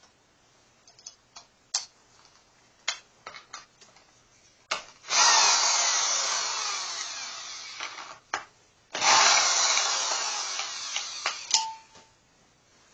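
Handheld power drill running in two long spells of a few seconds each, driving a 12 mm socket on bolts at the timing-chain end of a Nissan VQ30DE engine; each run starts loud and fades. Metal clicks and clinks of tool handling come before it, and a short ringing clink near the end.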